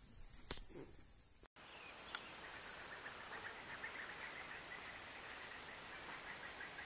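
Faint outdoor ambience of insects: a steady high buzz with a rapid chirring trill that starts about two seconds in and runs for several seconds. Before that there is a single click and a brief break in the sound.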